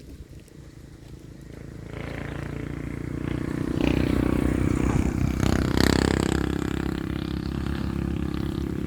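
An engine running, growing louder from about two seconds in and loudest near the middle, then holding steady.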